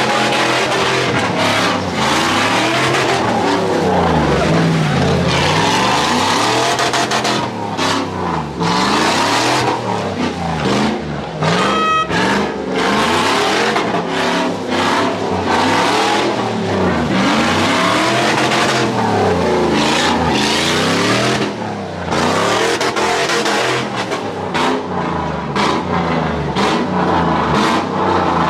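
Several car engines revving hard, their pitch climbing and falling over and over, with a hiss of tyre noise under them.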